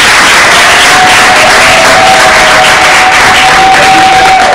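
A group of people clapping and cheering, loud and dense, with one steady high note held over the applause for about three seconds.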